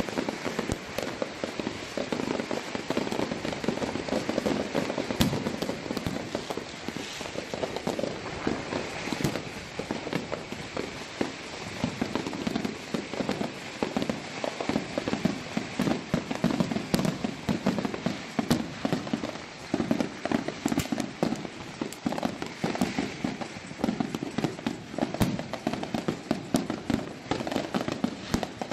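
Aerial fireworks going off in a continuous barrage: dense overlapping crackling and popping, with sharper bangs scattered throughout.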